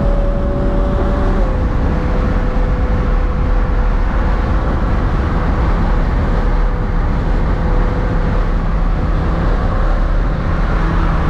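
Car engine and road noise while cruising at steady speed: a loud, continuous drone with a steady engine tone that drops slightly in pitch about a second and a half in.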